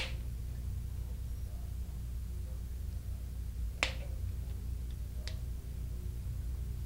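A few small sharp clicks from hands working alarm wiring, handling wire and resistor leads, over a steady low hum. The loudest click comes about four seconds in and a fainter one a second or so later.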